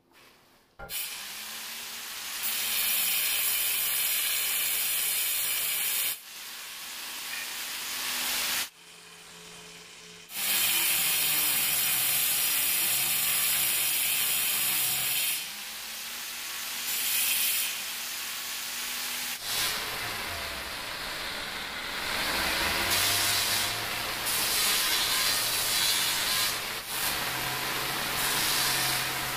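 Angle grinder with a diamond disc cutting and grinding the edge of a black granite slab: a high, hissing grind over the motor's hum, in several long stretches with short pauses between.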